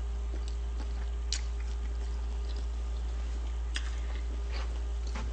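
Faint eating sounds: small mouth clicks and smacks of someone chewing food, two of them sharper about a second in and near four seconds in, over a steady low hum.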